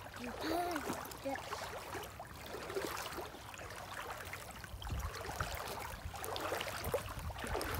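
Floodwater sloshing and splashing around someone wading through it on foot. Low rumbling noise on the microphone comes and goes around the middle and near the end.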